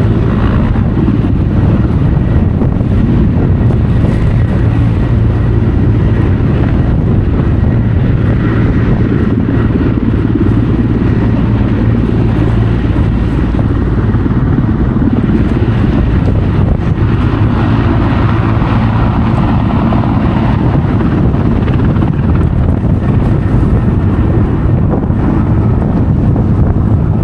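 Loud, steady engine and rotor noise of a sky-crane firefighting helicopter flying close, with wind buffeting the microphone.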